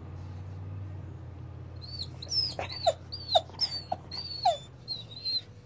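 Six-month-old puppy whining: a quick run of short, high, wavering cries that starts about two seconds in, over a low steady hum.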